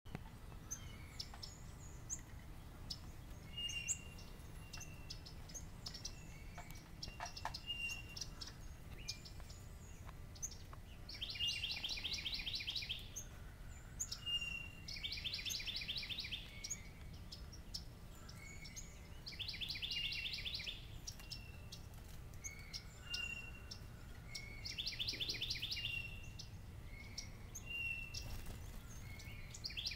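Songbirds calling. A rapid musical trill is repeated five times, about every four to five seconds, with short whistled notes and chip calls between.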